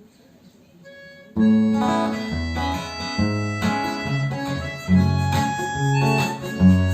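Instrumental introduction of a blues song: acoustic guitar playing plucked notes over a walking bass line, coming in sharply about a second and a half in after a faint start.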